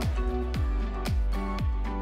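Background music with a steady beat, about two beats a second, under held notes.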